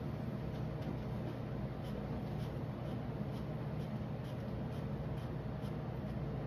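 Black pen scratching on paper in short back-and-forth strokes, filling in small squares of a drawing, over a steady low hum.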